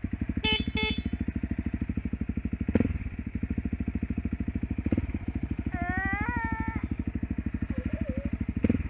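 Honda dirt bike's single-cylinder engine running at a steady low speed as it rides over rough grass, with a few sharp knocks from bumps. Two short high beeps sound near the start, and a brief rising voice-like call comes midway.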